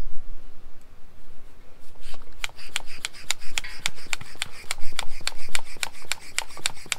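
Small hand bicycle pump inflating a freshly patched inner tube: quick, even strokes, about three a second, starting about two seconds in.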